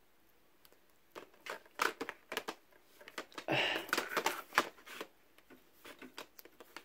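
Plastic DVD cases being handled at a packed shelf: one case slid back in among the others and the next pulled out. It comes as a run of short clicks and scrapes starting about a second in, busiest around the middle.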